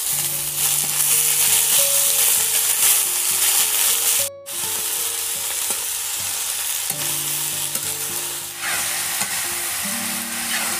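Chopped red cabbage frying in hot oil in a metal kadai, sizzling steadily while a metal spatula stirs and scrapes it. The sound cuts out briefly a little after four seconds in.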